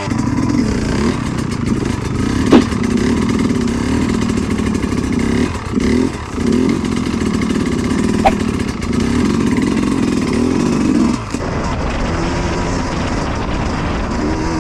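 Dirt bike engine running and being revved as it warms up, heard from the rider's helmet. Two sharp clicks come about two and a half and eight seconds in, and the engine note drops lower about eleven seconds in.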